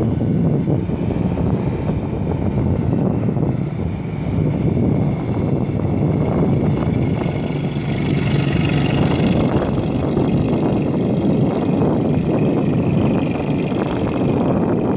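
Engine of a Sealegs amphibious RIB running steadily as the boat drives on its wheels out of the water and up the slipway.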